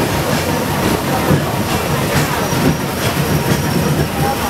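Hong Kong's Peak Tram, a cable-hauled funicular car, running down the hill: a steady rumble of its wheels on the rails, heard from inside the car.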